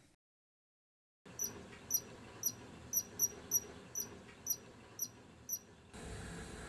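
After about a second of dead silence, a series of about ten short, very high chirps comes at roughly two a second, each one a quick downward flick. Near the end the chirps give way to a steady faint hiss with a low hum.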